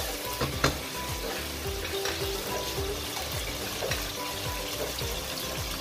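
Chili paste, blended shallots and whole spices sizzling as they fry in oil in a stainless steel pot while being stirred, with a sharp knock about half a second in.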